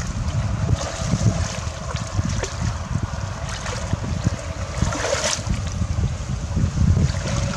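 Hands sloshing and splashing through shallow muddy water while groping for fish, with a louder splash about five seconds in. Wind rumbles on the microphone underneath.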